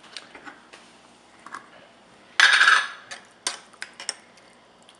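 Screw lid twisted off a glass jar of fermented salmon, with one short loud rasp about halfway through, then a metal spoon clinking against the glass as it scoops.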